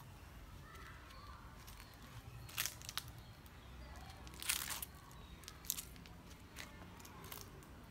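Dry fallen leaves crunching underfoot in a handful of short, separate crunches, the longest and loudest about halfway through, over a low steady outdoor background.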